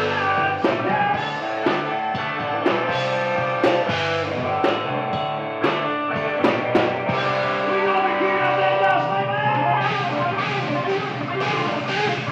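Live rock band playing: electric guitar over a drum kit, with a sharp drum hit about once a second.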